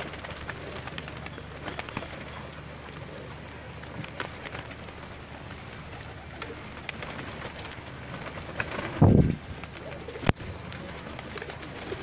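A large flock of domestic racing pigeons feeding: continuous cooing, wing flutters and many small pecking clicks on the ground. A loud low sound comes about nine seconds in, followed by a single sharp click a second later.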